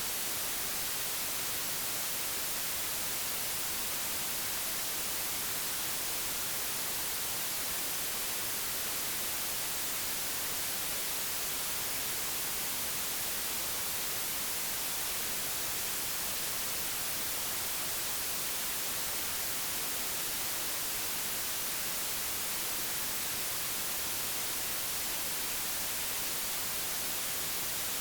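Digitally generated white noise: a steady, even hiss across the whole frequency range, unchanging throughout.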